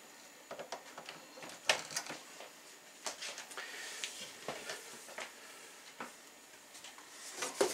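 Light clicks and knocks of a microwave's power cord and plug being handled and pushed into an outlet inside a wall cabinet, the sharpest about two seconds in.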